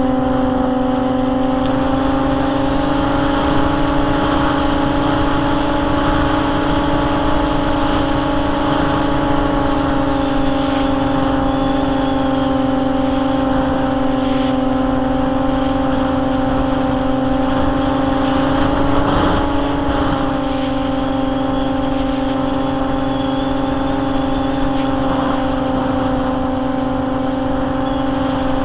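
RC model plane's motor running at a steady high pitch, heard from a camera riding on the plane in flight, with wind noise over the microphone. The pitch dips slightly for a moment about two-thirds of the way through.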